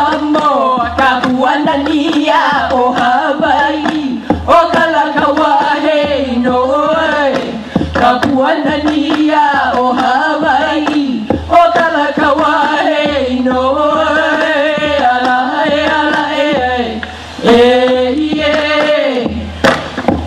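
Hawaiian hula chant (mele): one voice chanting in long, bending, held phrases with brief breaks, and now and then a sharp percussive strike.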